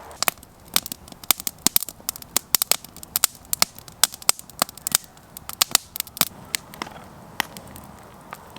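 Birch-wood campfire crackling with sharp, irregular pops, dense for about six seconds and then thinning out.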